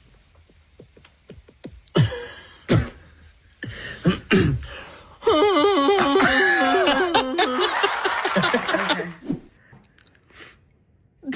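A person making silly non-speech vocal sounds. A few short sharp noises come first, then a loud, high, warbling voice sound with a wobbling pitch held for about four seconds.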